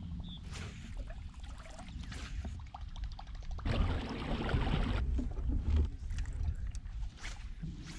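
Water sloshing and trickling against a kayak hull as the boat moves, over a steady low rumble, with scattered small clicks and a louder rush of water about four seconds in.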